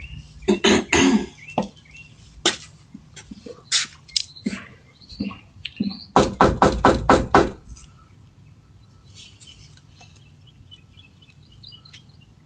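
Knocking on a front door: a few knocks, scattered taps, then a quick run of about seven hard knocks. Birds chirp faintly afterwards.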